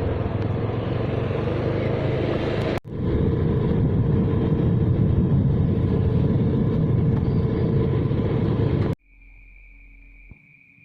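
Steady rumble of a road vehicle on the move, with road, engine and wind noise, broken by a sudden cut and resuming. Near the end it cuts to a much quieter scene with a steady high-pitched insect drone.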